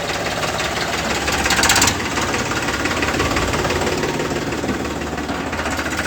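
Tractor diesel engine idling steadily with a fast, even knocking beat, briefly louder for about half a second around a second and a half in.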